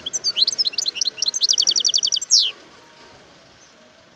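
European goldfinch singing a short phrase of about two and a half seconds. Quick, varied twittering notes lead into a rapid trill, and the phrase ends on one loud, downward-slurred note.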